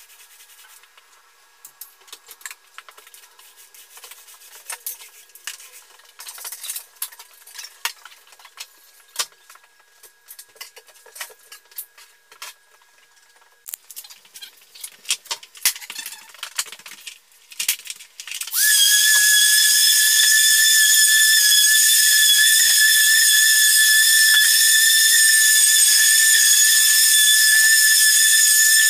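Irregular light clicks and rubbing for most of the stretch. About 18 seconds in, a machine's loud, steady, high-pitched whine starts suddenly and runs on unchanged.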